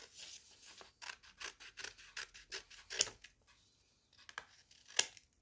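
Scissors snipping through folded cardstock (cartulina) in a run of short cuts to shape a curve. There is a brief pause a little past the middle, and two sharper snips come about three and five seconds in.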